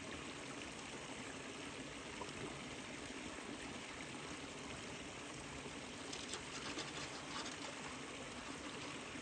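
Steady rushing of a flowing creek, with a few faint clicks about six to seven and a half seconds in.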